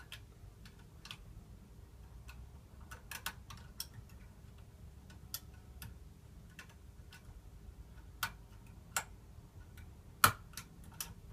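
Irregular small metallic clicks and ticks of a curtain pick lifting the levers inside an ERA Fortress five-lever mortice lock, one lever at a time with light touches, with a sharper click about ten seconds in.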